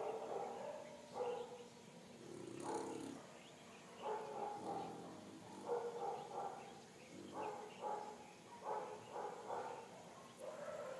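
A plump dog snoring in its sleep. Each snore is a short, pitched rasp, coming about every second or so, with a quicker run of short snores about two-thirds of the way through.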